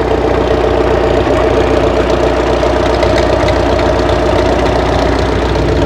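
An engine idling at a steady speed, its even running unchanged throughout.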